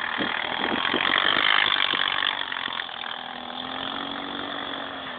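A motor vehicle's engine running, swelling to its loudest about a second and a half in, then easing back to a steadier, lower running.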